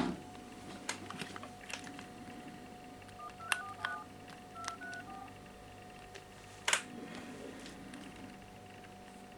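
Phone keypad touch tones (DTMF) as number keys are pressed: a quick run of about four short beeps, then about three more, amid faint taps on the handset. A louder knock comes near seven seconds in.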